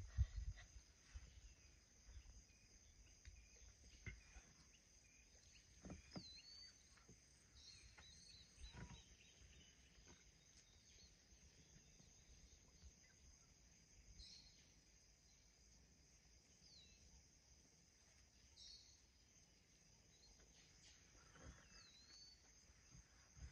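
Faint outdoor ambience: a steady high-pitched insect drone, with short bird chirps every few seconds and a few soft low knocks.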